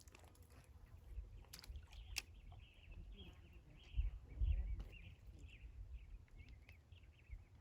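Small birds chirping repeatedly, with a few sharp clicks and two brief low rumbles about halfway through.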